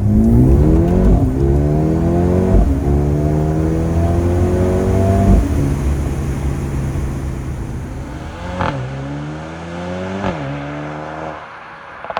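Mercedes-AMG A35's turbocharged four-cylinder accelerating hard through the gears, with quick upshifts about 1, 2.5 and 5.5 seconds in. It then lifts off and blips the throttle on two downshifts near 9 and 10 seconds, with a sharp exhaust pop near the first blip and another crack at the very end.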